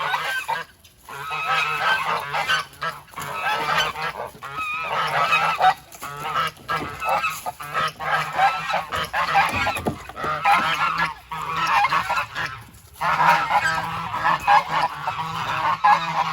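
Geese honking, many calls overlapping almost without pause, with short breaks about a second in and again near thirteen seconds.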